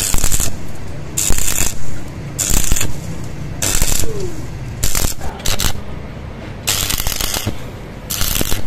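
Stick (arc) welding: the electrode's arc crackles and sizzles in short bursts, about one a second. Between the bursts the arc is broken off and struck again.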